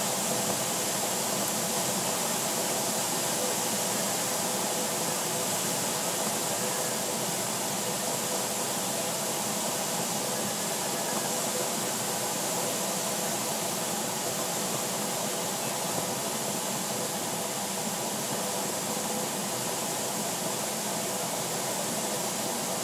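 Steady rushing airflow noise in the cockpit of a DG-505 two-seat glider in flight, with a faint steady hum underneath.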